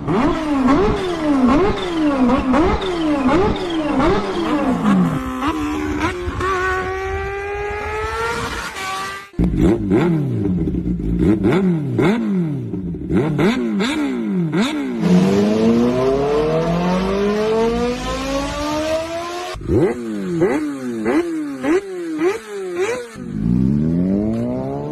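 Kawasaki R-series sport bikes' inline-four engines revving hard through the exhaust: quick throttle blips that rise and fall several times a second, then longer pulls where the revs climb steadily. The sound changes abruptly three times as one bike's clip gives way to the next.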